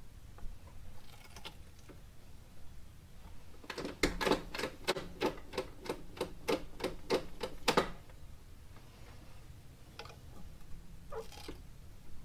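A quick, even run of about fourteen sharp mechanical clicks, three to four a second, lasting about four seconds, with a few fainter knocks before and after.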